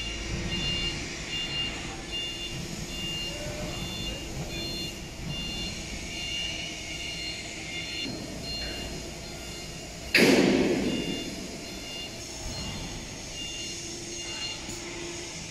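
A FAW vacuum tank truck running, with an electronic beep repeating a little over twice a second. About ten seconds in, a sudden loud burst of noise fades away over a second or so.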